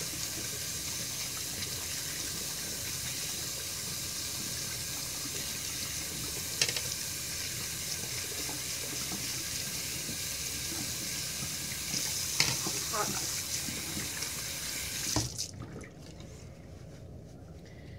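Bathroom sink tap running steadily while hands are rinsed under it, with occasional splashes. Near the end the tap is turned off with a short knock and the running water stops.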